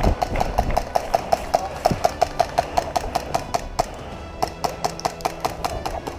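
Background music with a steady ticking percussion beat, about five or six ticks a second, with held low notes joining in the second half.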